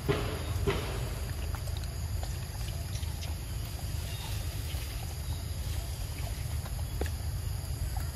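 Macaque biting and chewing a ripe mango: a few short wet clicks and smacks, strongest in the first second and faint later. Under them runs a steady low rumble of wind on the microphone.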